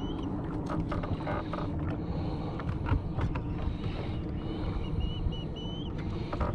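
Fishing reel being cranked in two short spells, its gears giving a whirring whine that rises and falls about four times a second, with scattered light clicks and knocks from handling.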